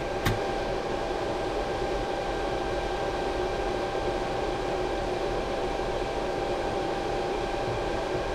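Steady whirring hum of a running fan, with a few constant whining tones over an even rush of air, and one light click just after the start.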